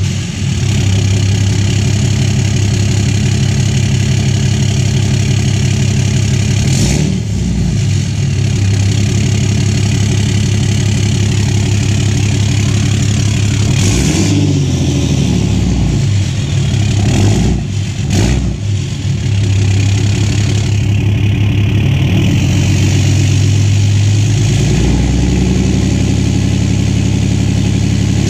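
6.7L Cummins inline-six turbo diesel idling, heard right at its 4-inch exhaust fitted with a 6-inch tip. It is blipped a few times, the pitch rising and falling about 7, 14 and 17 seconds in.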